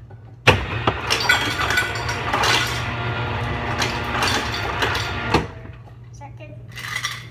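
Refrigerator door ice dispenser running for about five seconds, ice cubes clattering into a metal water bottle; it starts suddenly about half a second in and cuts off abruptly.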